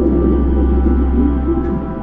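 Ambient background music with a low, steady drone underneath.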